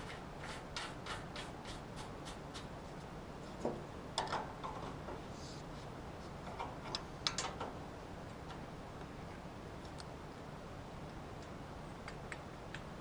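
Light, regular plastic ticks and taps, then a few louder clicks and knocks, from handling a plastic gallon jug and funnel while filling a backhoe's hydraulic reservoir with fluid.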